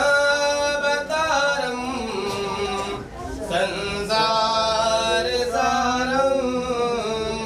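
A man's voice singing a devotional chant in long held notes that slowly bend in pitch, with short breaks between phrases.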